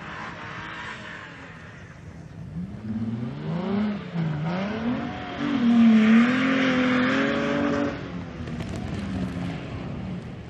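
Off-road 4x4's engine revving hard on a sand dune, its pitch rising and falling from a few seconds in, loudest near the middle, then easing off about two seconds before the end.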